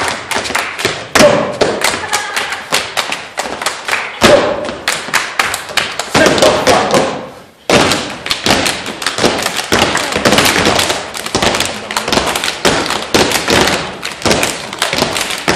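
Step team stepping: rapid, dense stomps and claps in tight rhythm, with a brief break about halfway through before it picks up again.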